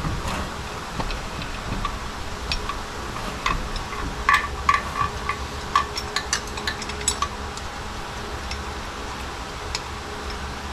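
Light metallic clicks and clinks as a power steering pump and its bracket and bolts are handled and fitted against the front of the engine, with a cluster of taps in the middle. A steady low hum runs underneath.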